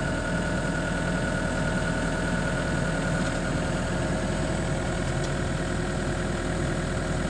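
Excavator's diesel engine running steadily at an even speed, without revving.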